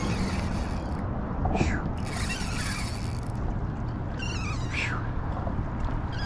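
Shimano Sahara 2500 spinning reel giving line under a hooked fish: the drag slips in short buzzing runs that fall in pitch, about a second and a half in and again near five seconds, with a spell of clicking between. Steady wind and water noise underneath.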